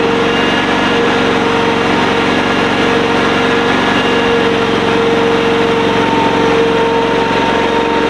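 Honda petrol engine of a sit-on mini skid steer loader running steadily at an even speed, with no revving.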